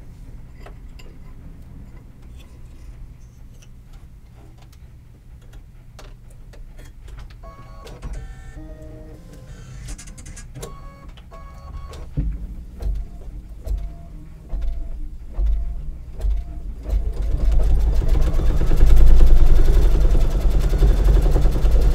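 Brother Luminaire 2 computerized embroidery machine starting to stitch the placement line for puffy foam: a few short electronic tones, uneven thuds as the needle starts about halfway through, then a steady fast stitching run with a rising motor whine as it comes up to speed.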